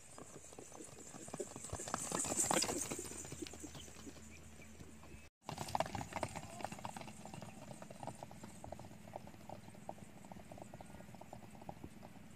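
Galloping horses' hooves striking sandy ground in a rapid run of beats, swelling louder about two seconds in.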